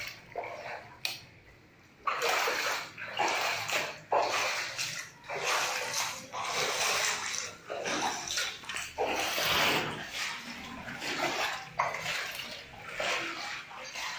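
Floodwater sloshing and splashing in repeated irregular surges as someone wades through rainwater covering a house's floor, starting about two seconds in.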